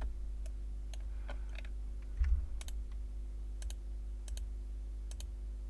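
Clicks of a computer mouse and keyboard as faces are picked one by one in 3D software: scattered single and paired clicks, over a steady low hum.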